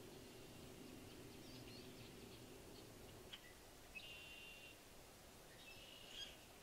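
Faint, high bird trills: a few short buzzy trills, the clearest about four seconds in and another near the end, over near silence.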